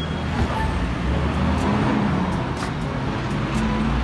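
Diesel engine of a Hino 500 garbage compactor truck running steadily as the truck drives past, with street traffic noise.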